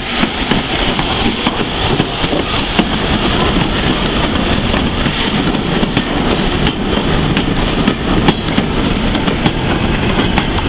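A steam-hauled train led by LNER B12 4-6-0 locomotive 8572 rolling past close by, its vintage carriages and a goods wagon following, with a steady rumble and wheels clicking and clattering over the rail joints.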